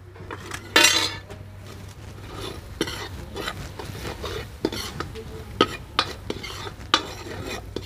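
Steel ladle stirring and scraping spices through onions and garlic in an iron karahi, with irregular metal-on-metal clinks and a louder scrape about a second in.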